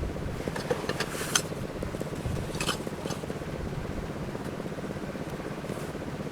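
Wind rumbling on the microphone, with a few sharp clinks of cooking pots and utensils; the loudest clink is about one and a half seconds in.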